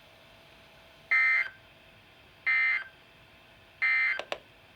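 Emergency Alert System end-of-message signal: three short buzzy digital data bursts about a second apart, marking the end of the alert message. Two quick clicks follow the third burst.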